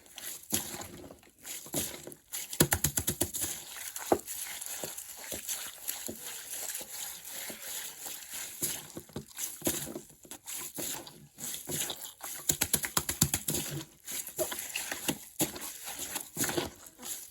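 Plastic bag holding water thrashing about, its film crinkling and rustling. Bursts of rapid rattling taps come about 3 seconds in and again around 12 to 13 seconds in.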